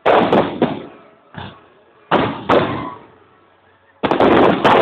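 Aerial fireworks shells bursting overhead: a series of about seven sharp bangs, each trailing off, with a louder cluster near the end.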